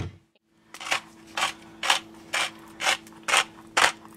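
Pepper mill being twisted, grinding pepper in short, regular strokes about twice a second, starting just under a second in.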